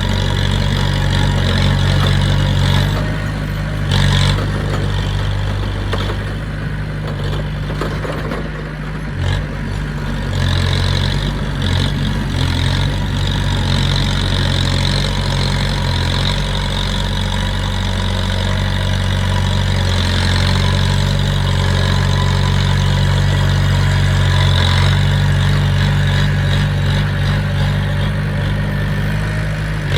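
Diesel engine of heavy earthmoving machinery (bulldozer or dump truck) running steadily. Its note wavers and dips between about 3 and 11 seconds in, with a couple of brief knocks, then holds steady.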